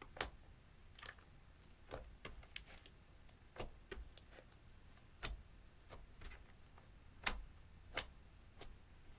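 Clear slime being kneaded and pressed, giving a dozen or so sharp, irregular clicks and pops; the loudest comes about seven seconds in.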